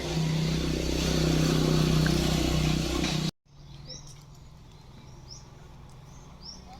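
A loud steady rushing noise with a constant low hum, cut off abruptly about three seconds in; then quiet outdoor ambience with a bird giving a few short rising chirps about a second apart.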